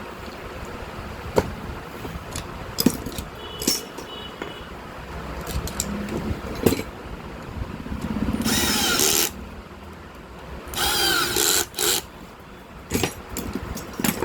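Workbench repair sounds: scattered clicks and knocks of tools and metal parts being handled, with two loud bursts of about a second each from a power tool, the second about two seconds after the first.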